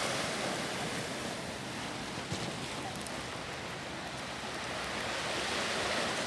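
Sea waves washing against the shore: a steady rush that swells near the start, eases, and swells again near the end.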